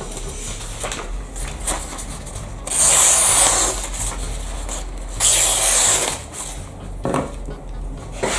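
A sharp knife blade slicing through a sheet of paper twice, each cut a hissing rustle about a second long, with quieter paper rustling between. The clean slicing is the sign of a freshly sharpened edge.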